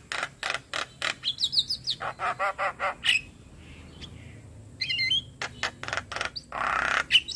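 Javan myna singing a varied song: quick runs of sharp clicking notes and repeated chattering notes, a short pause midway, then more calls ending in a harsh rasping note.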